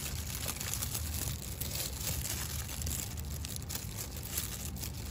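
Light crinkling, rustling handling noise with small clicks as salted egg is spooned into a clay mortar of corn salad, over a low steady hum.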